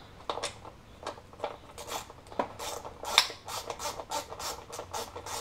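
Hand ratchet with a 10 mm socket worked back and forth in quick short strokes, giving a rasping clicking about three or four times a second, as a bolt holding the throttle body is backed out.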